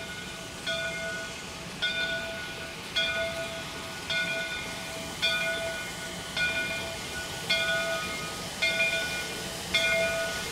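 Steam locomotive's bell ringing steadily as the Shay geared locomotive approaches, about one clear strike a second, each ring fading before the next.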